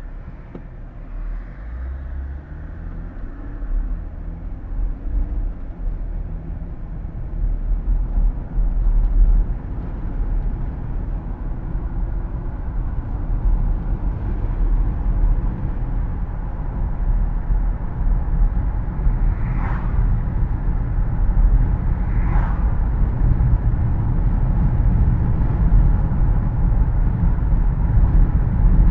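Car driving, heard from inside the cabin: engine and tyre road rumble with the steady hiss of the air conditioning, the rumble growing gradually louder. Twice, about two-thirds of the way through, a brief higher-pitched sound stands out over it.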